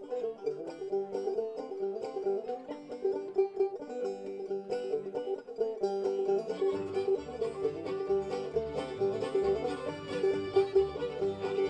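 Old-time string band music led by a banjo picking the tune in quick plucked notes. About six and a half seconds in, low bass notes join underneath, typical of the double bass coming in.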